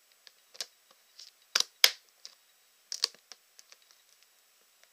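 Irregular sharp clicks and taps of a clear plastic tarantula enclosure being handled by fingers, loudest as a close pair about one and a half seconds in, with another cluster about three seconds in.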